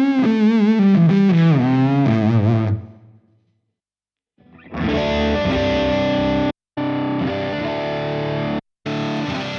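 Electric guitar played through a distorted Fractal Audio FM9 amp-modeler preset. A descending lead line with wide vibrato fades out, then after a moment of silence come heavy held chords about two seconds long, each cut off sharply.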